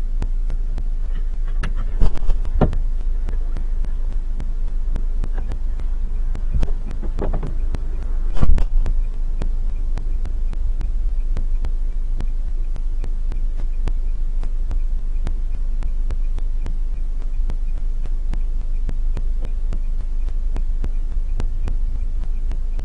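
Steady low hum with a slow throb from a car stopped with its engine idling, heard from inside the cabin. A few sharp knocks break in, the loudest about eight and a half seconds in.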